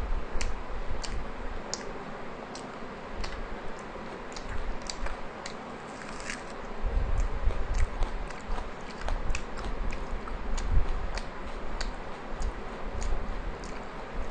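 Close-up chewing of soft rumali roti with curry: wet mouth clicks at a steady chewing pace, one or two a second, over low muffled thumps that get heavier about halfway through.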